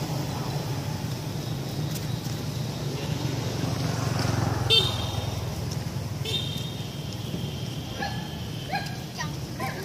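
Steady low rumble of road traffic, with a sharp high squeal about halfway through, a brief car-horn toot a second or two later, and a few short rising squeaks near the end.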